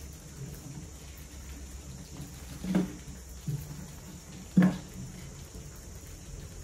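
Rats dropping through the tipping-plate tube of a glass-tank trap, landing with two dull thuds about two seconds apart and a softer knock between them, over a steady low background noise.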